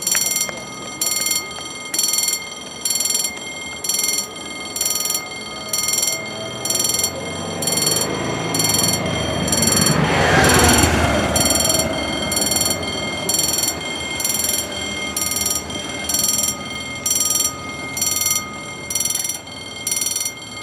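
Level crossing warning bell ringing in even pulses, about one a second, warning of an approaching train as the hand-worked barriers come down. About halfway through, the noise of a passing road vehicle swells and fades under the bell.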